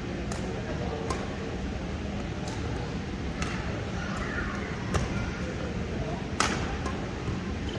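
Badminton rally: a string of sharp racket-on-shuttlecock hits, about one every second or so, the loudest about five and six and a half seconds in.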